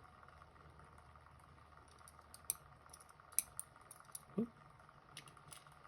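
Faint, scattered small metallic clicks and ticks of tweezers picking the tiny side pins out of a Robur safety deposit box lock's sidebar.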